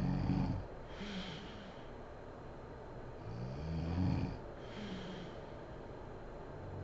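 A woman snoring in her sleep: a low, rumbling snore at the start and another about three seconds in, each followed by a shorter breathy sound, with the next snore building near the end.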